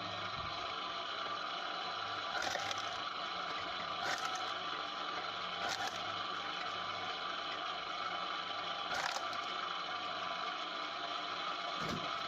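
A homemade firewood processor running with a steady mechanical hum, wood clattering and cracking in four sharp knocks a couple of seconds apart, and a low thud near the end.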